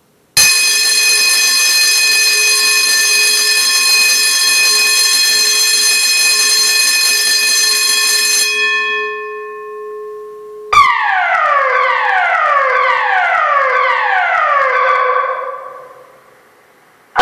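Building fire alarm system sounding: a loud, harsh steady alarm tone for about eight seconds that fades out, then after a short gap a tone sweeping downward from high to low, repeated about five times, each sweep about a second long. The falling sweep is the pattern of the German standard evacuation signal (DIN 33404-3), which calls for the building to be evacuated.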